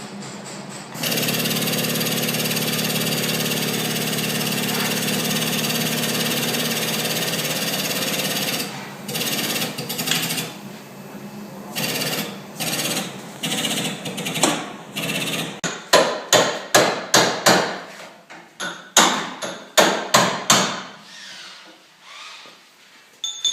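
A steady machine noise for about eight seconds, then short intermittent bursts. Near the end comes a run of sharp hammer blows on the ATV's steel frame, about two a second, as the bent frame is straightened.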